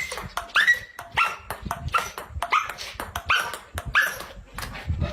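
A dog barking repeatedly in high-pitched barks, about six or seven of them a little under a second apart, each rising sharply at its start.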